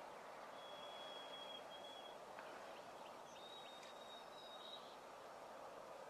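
Faint outdoor background hiss with a distant small bird giving two long, thin, high whistled notes, one near the start and one past the middle.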